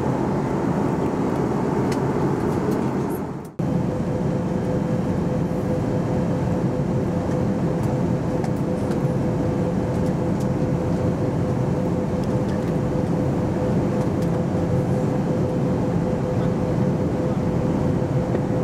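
Steady in-flight cabin noise of an Airbus A320neo: air rushing past the fuselage over the hum of its CFM LEAP-1A engines. About three and a half seconds in, the sound briefly fades out and cuts straight back in, and after that a steady hum tone is heard.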